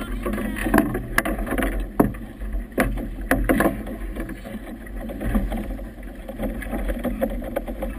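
Choppy river water slapping and splashing against the hull of a boat moving in 17-20 knot wind. Irregular sharp slaps come every half second to a second, more often in the first half, over a steady low rumble.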